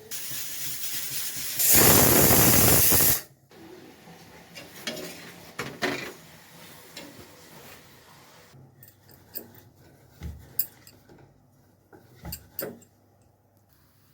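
A loud, even hiss for about three seconds, growing louder partway through and then cutting off suddenly. After it come scattered light clicks and knocks.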